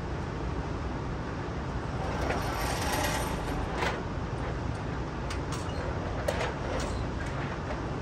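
Motorised target carrier running along its overhead track, sending a paper target downrange: a steady mechanical rumble with a few faint clicks.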